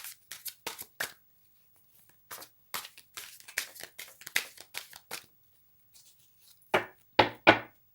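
A deck of reading cards being shuffled by hand: a run of quick papery strokes in short bursts, then a few louder snaps of the cards near the end.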